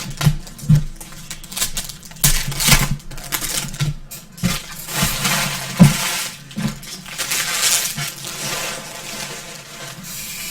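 Trading card packs and cards being handled: a run of sharp clicks, taps and rustles as wrappers are opened and cards are flipped through, over a steady low hum.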